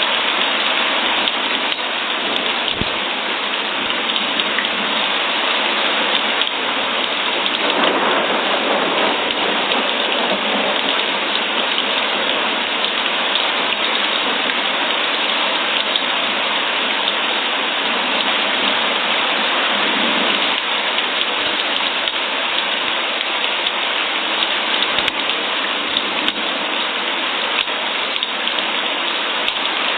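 Steady rain falling and pattering on surfaces, an even hiss that swells slightly a couple of times.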